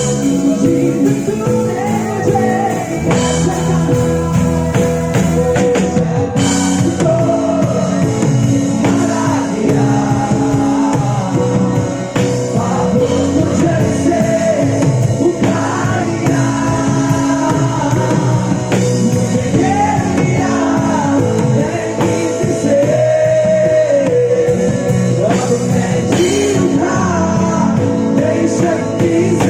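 Live band playing a Hindi Christian worship song in a rock style, with singing.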